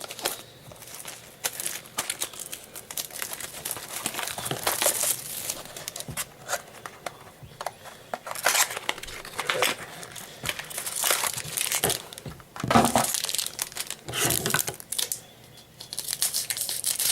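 Plastic wrapping on a sealed trading-card box and pack being torn open and crinkled by hand, in irregular bursts that grow denser and louder in the second half.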